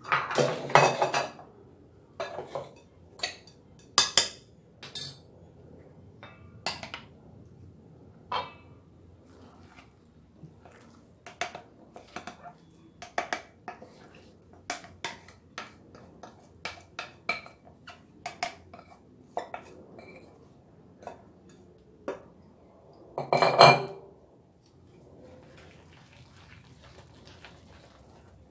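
Metal spoon clinking and scraping against a ceramic bowl and a stainless steel mixing bowl as chopped garlic chives are scooped into flour batter: a run of quick clinks, with one louder clatter a few seconds before the end.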